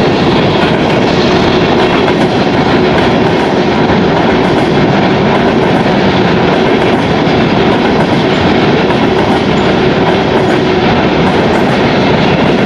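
Freight train of open-top coal cars rolling past close by: a steady, loud rumble of steel wheels on the rails, with wheels clacking over the track.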